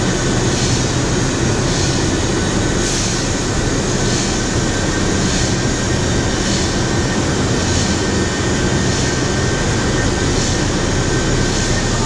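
Steady industrial machinery drone with a low hum, and a faint hiss that swells about once a second.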